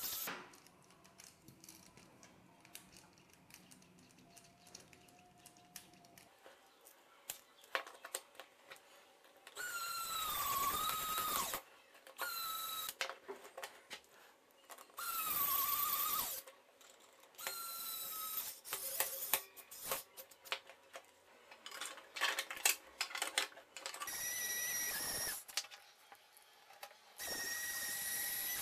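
Small cordless electric screwdriver driving M3 bolts into 3D-printed chassis parts, whining in about seven short bursts of one to two seconds. Its pitch sags in places as a bolt takes load. Light clicks of small parts and bolts being handled fall between the runs.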